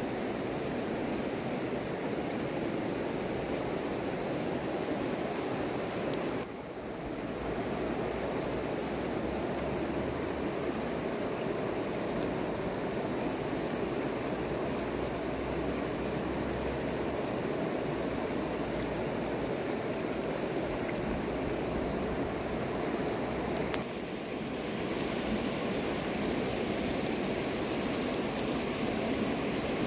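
Steady rushing of a shallow river flowing over a gravel bed. The level dips briefly twice, about six seconds in and again near twenty-four seconds.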